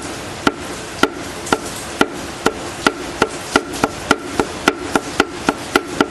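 Repeated metallic clacks, about two a second and speeding up to about four, each with a short ring: a connecting rod of a VW EA111 1.0 8V engine being worked by hand, knocking because of a very large bearing clearance left by lack of lubrication.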